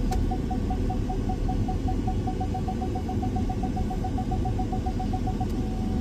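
Ford F-450's reverse parking-sensor beeping, the beeps coming faster and faster as the truck backs toward the trailer and merging into one continuous tone near the end, the sign that the obstacle is very close. The truck's engine runs underneath, heard inside the cab.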